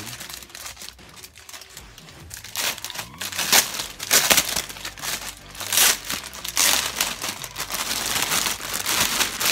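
Clear plastic packaging bag crinkling and rustling in irregular bursts as it is pulled open by hand. It is quieter for the first couple of seconds and busier after that.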